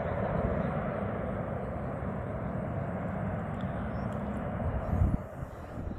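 Jet noise from the Boeing C-17 Globemaster III's four turbofan engines: a steady, dense rumble and rush as the transport flies a low, steeply banked pass. About five seconds in there is a short, loud low thump, and the noise drops after it.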